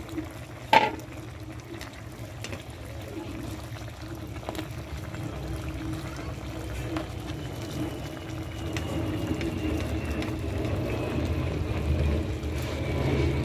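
Crabs and vegetables in coconut milk bubbling at a boil in a cooking pot, growing slowly louder. A single sharp knock sounds about a second in, and a faint high tone falls slowly through the second half.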